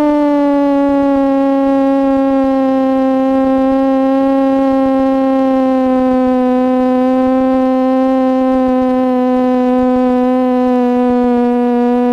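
Piper PA-28 Cherokee's engine and propeller droning steadily at reduced power on final approach, as heard in the cockpit. Its pitch sinks slowly as the plane descends to land.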